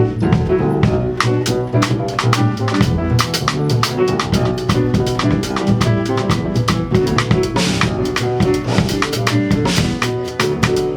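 Jazz-style music with a drum kit keeping a steady beat over bass and chords, with a cymbal crash about seven and a half seconds in.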